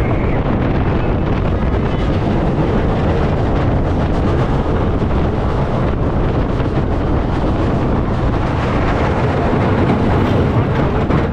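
Loud, steady wind rushing over the microphone mixed with the Scorpion steel looping roller coaster's train running along its track during the ride.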